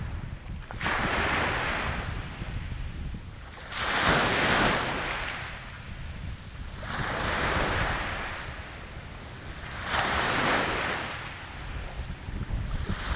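Small waves breaking and washing up a sandy beach, a surge of surf hiss about every three seconds, over a steady rumble of wind on the microphone.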